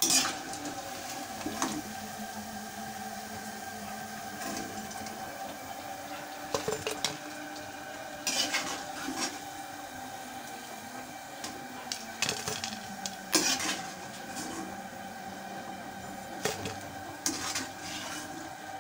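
Slotted metal spoon clinking and scraping against an aluminium kadai and a plate as besan-coated potato pakoras are lifted out of hot ghee, with the ghee sizzling steadily underneath. The clinks come at irregular intervals, several times over.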